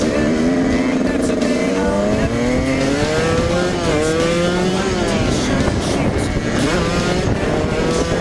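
Dirt bike engine accelerating through the gears: its pitch climbs and then drops at each shift, several times over.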